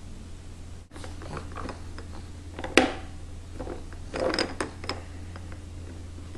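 Plastic toys on a baby's activity saucer clicking and rattling as the baby handles them: scattered clicks, the loudest about three seconds in and a quick cluster a little after four seconds, over a steady low hum.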